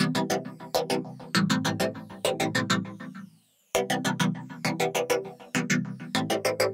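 Background music: an electronic, synthesizer-led track of quick repeated notes over a steady low part, which drops out briefly about three and a half seconds in.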